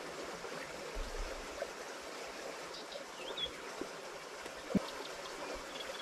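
Shallow floodwater of an overflowing river flowing steadily over the track, with a few faint ticks, a short faint chirp about three seconds in and a soft thump near the end.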